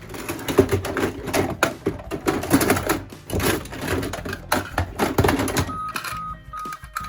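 Small plastic and die-cast toy cars clattering and rattling against each other and a hard surface, a dense run of knocks and clicks. About six seconds in the clatter stops and a high electronic beep starts repeating, two or three times a second.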